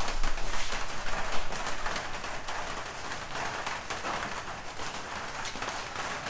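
Steady rain falling, a dense hiss of many small drops, a little louder in the first couple of seconds.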